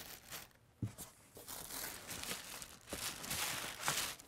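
Cardboard packing scraping and rustling as it is worked loose and pulled from inside a cardboard shipping box, with one sharp knock just under a second in and the scraping louder in the second half.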